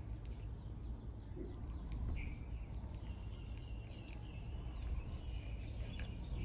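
Quiet background noise: a low rumble with a steady faint insect-like chirring and a few faint short chirps.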